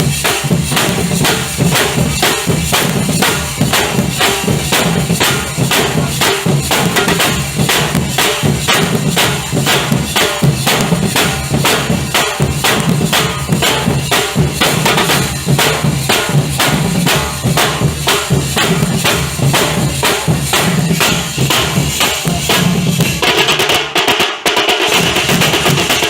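Nasik dhol ensemble playing: large dhol drums and tasha beating a fast, dense, driving rhythm. Near the end the beat breaks off briefly and comes back with a brighter, shimmering sound.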